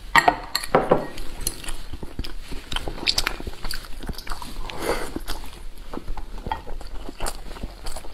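Close-miked eating sounds of a soft boiled dumpling being bitten and chewed: wet chewing with many quick lip smacks and mouth clicks, loudest just after the start.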